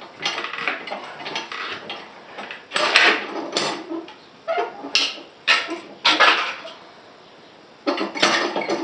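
Harbor Freight manual tire changer's bead breaker being worked on a motorcycle wheel: irregular metal clanks and scrapes as the lever is pumped and the jaw is repositioned, with a short lull before a final flurry of clanks.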